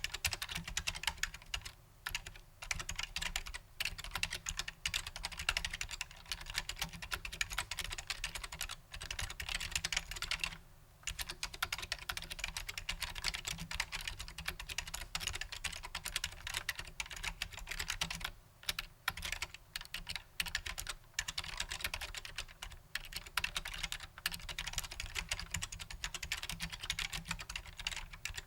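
Continuous typing on a Matias Quiet Pro mechanical keyboard with Alps-clone switches: a fast, dense patter of soft key clicks, with a few short pauses.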